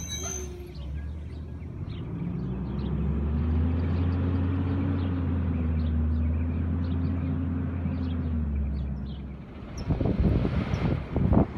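Garbage truck's diesel engine pulling away, its note rising at about two seconds and then holding steady. Small bird chirps sound over it. Near the end the engine sound cuts off and is replaced by loud, irregular wind buffeting on the microphone.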